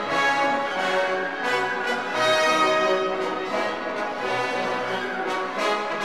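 Orchestral background music with brass instruments carrying sustained melodic notes.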